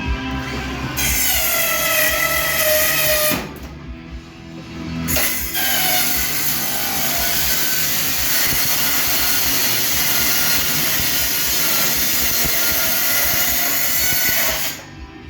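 A power tool working the sheet-metal casing of a washing machine. It whines briefly with its pitch sagging under load, stops for a moment, then runs with a steady, harsh hiss for about ten seconds.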